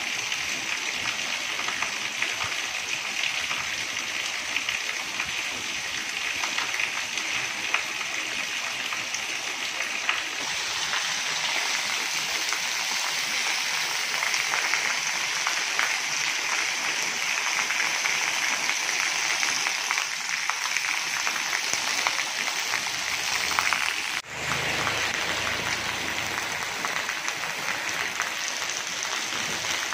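Heavy rain pouring onto wet tiled paving and a flooded street: a dense, steady hiss of splashing drops. It dips for an instant about three-quarters of the way through.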